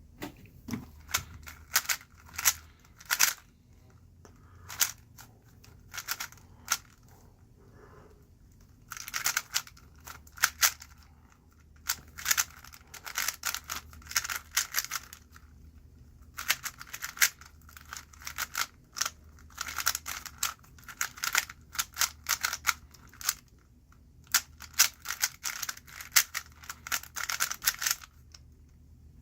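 A 3x3 speed cube being turned fast during a timed solve: its plastic layers click and clack in rapid bursts, separated by short pauses.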